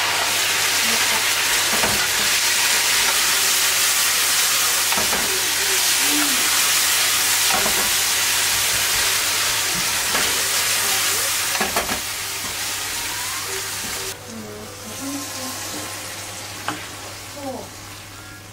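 Food sizzling hard in a nonstick frying pan of mackerel, tomatoes and vegetables in broth, with a spatula stirring and scraping through it. The sizzle stops suddenly about fourteen seconds in, leaving a few clicks and scrapes of the spatula as the food is moved onto a plate.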